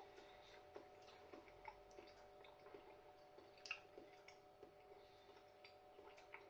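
Near silence: faint soft clicks and mouth sounds of a person chewing a mouthful of risotto, over a steady low hum, with one sharper click about three and a half seconds in.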